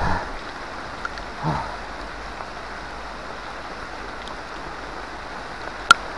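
Heavy rain pouring steadily as an even hiss, with a sharp click near the end.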